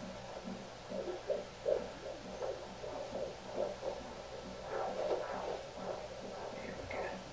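Handheld fetal Doppler monitor's speaker giving a hissing, rhythmic pulsing, about three beats a second, as the probe is moved over the belly in search of the baby's heartbeat.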